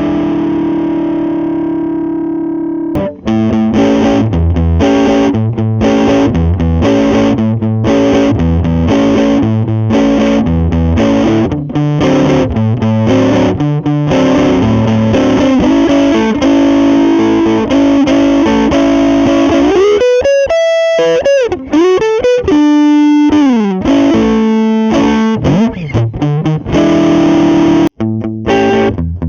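Electric guitar, a Squier Vintage Modified Jazzmaster, played through a Lovepedal Blackface Deluxe overdrive pedal for a mildly driven, Fender-amp-style tone with the pedal's EQ changed. A held chord rings out and fades, then chords and riffs follow, with several wide string bends past the middle; the playing stops briefly near the end before a new phrase starts.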